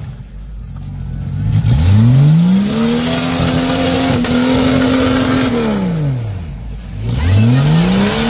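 Jeep Cherokee XJ engine revving hard under load as its tyres spin in the mud. The revs climb about two seconds in, hold high for a few seconds, drop away, then climb again near the end.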